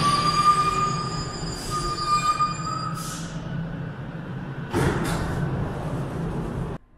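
Paris Métro train braking to a stop at the platform, its wheels and brakes giving a steady high squeal of several tones that fades out after about three seconds over a low rumble. A short burst of hiss follows about five seconds in.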